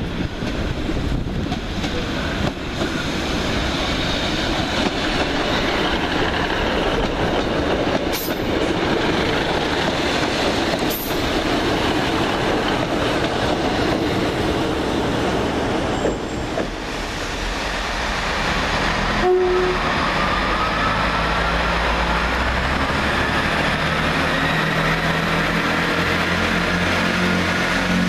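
Northern Rail diesel multiple unit trains at a station platform: diesel engines running and wheels rumbling on the track, with a few sharp clicks. Over the last several seconds an engine's whine rises slowly in pitch as a unit pulls away.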